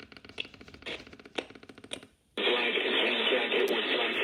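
Radio broadcast audio of an Emergency Alert System Amber Alert, badly distorted: a rapid crackling, clicking stutter, then a short dropout a little after two seconds. After it, a muffled, hissy, narrow-band signal starts abruptly. The alert audio is horrible.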